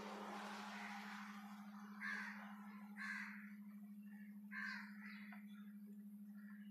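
Crows cawing: three caws stand out, about two, three and four and a half seconds in, over a steady low hum.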